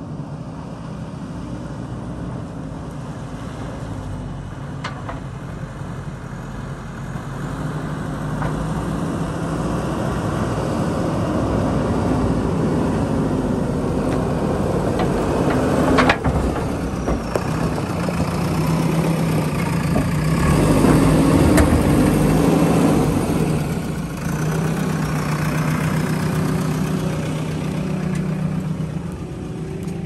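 JCB backhoe loader's diesel engine running steadily and growing louder as the machine comes close, loudest a little past halfway. A single sharp knock about halfway through.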